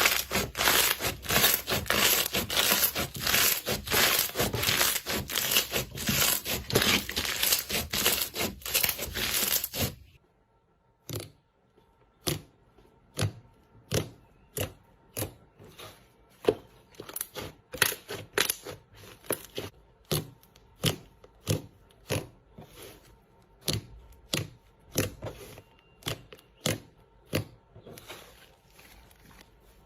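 Slime being worked by hand, crackling and popping: a dense run of loud crackles for about ten seconds, then it drops suddenly to a slower string of separate pops.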